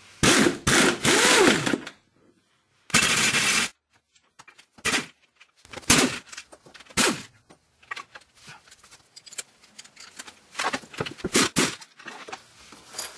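Air impact gun hammering in bursts as it works on the transmission bolts of a BMW E46: two long bursts in the first few seconds with a short pause between them, then scattered knocks and shorter bursts, and another run of bursts near the end.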